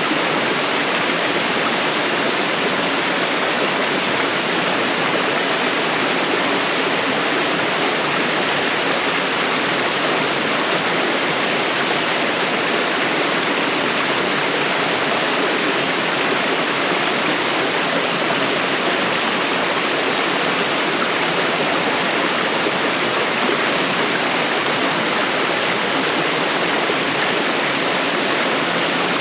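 Laurel Falls waterfall, water falling and splashing in a steady rush.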